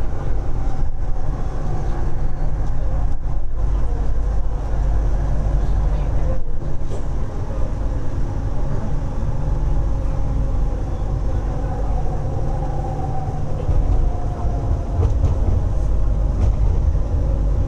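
Light-rail metro train running, heard from inside the carriage: a steady low rumble with a faint whine that rises and falls partway through.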